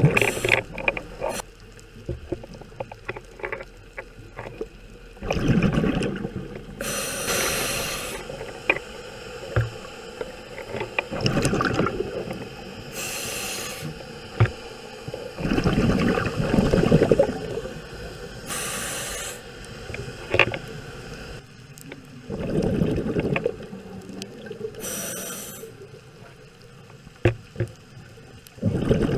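A scuba diver breathing underwater through a regulator, in a slow regular cycle about every six seconds: a short high hiss of air drawn through the regulator, then a lower bubbling rumble of exhaled bubbles, with small clicks in between.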